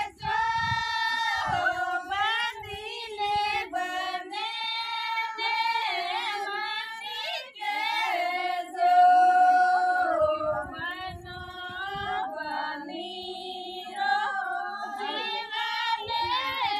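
High-pitched voices singing a melody together without instruments, the notes held and bending from phrase to phrase.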